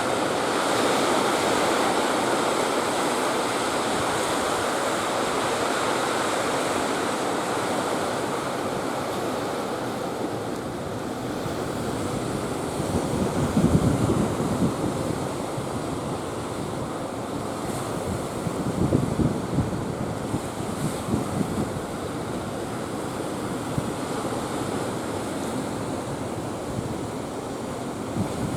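Sea surf washing steadily in a strong wind. Gusts buffet the microphone about halfway through and again a few seconds later.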